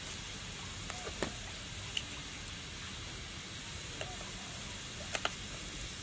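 A few light, sharp clicks and taps of a hand tool on the metal cutting head of a brush cutter, over a steady hiss.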